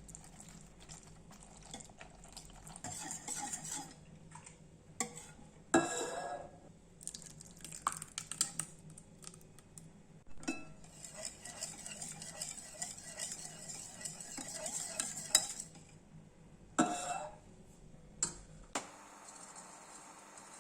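A kitchen utensil stirring and scraping in a mixing bowl, with a couple of sharp clinks against the bowl that ring briefly.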